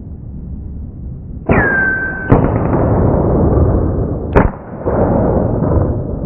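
PCP air rifles firing: two sharp reports about two seconds apart, each followed by a rushing noise that dies away. A brief whistle-like tone comes just before the first.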